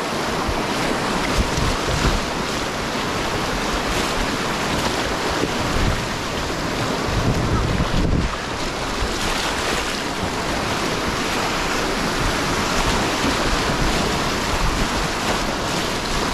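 River whitewater rushing as a steady, even noise, with wind buffeting the microphone in uneven low rumbles.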